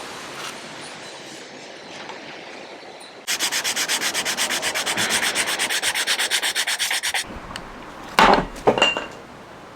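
Sandpaper rubbing on a wooden knife handle: a steady scrape, then from about three seconds in fast back-and-forth strokes, about eight a second, that stop a little after seven seconds. Near the end come a few loud clattering knocks with a short ring: the knife dropped onto a hard surface.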